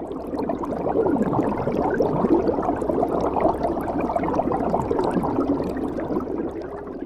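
Heavy rain pouring down, a dense patter of drops that fades in over the first second and fades out near the end.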